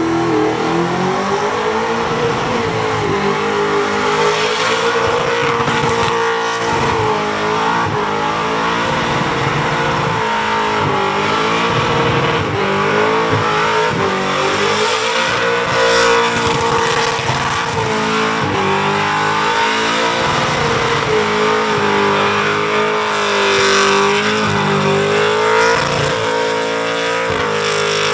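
LS V8 engine of a Holden Commodore ute held at high revs through a burnout, its pitch rising and falling as the throttle is worked, with the rear tyres spinning and squealing on the bitumen.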